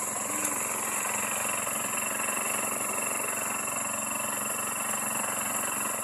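Small engine of a machine well-drilling rig running steadily at an even speed.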